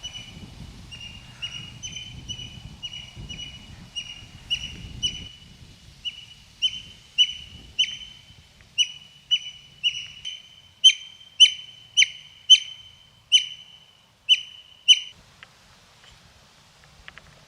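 A bird calling one short, clear whistled note over and over, about twice a second, the calls growing louder before stopping about fifteen seconds in.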